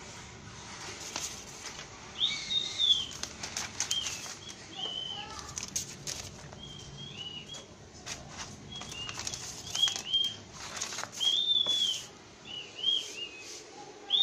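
Paper and plastic packaging rustling and crinkling in bursts as the kit's manuals and bagged cables are handled. Repeated short, high chirps sound throughout.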